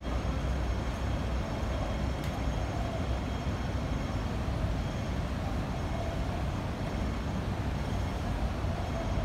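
Steady traffic rumble and hum of a city street, with no sudden events.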